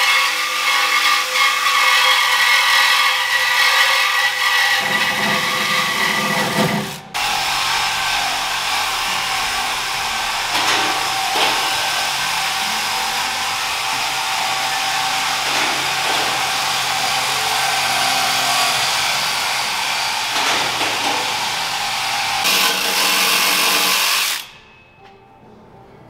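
Cordless power tool running loud against the truck's underside exhaust, with a brief break a few seconds in, and stopping shortly before the end.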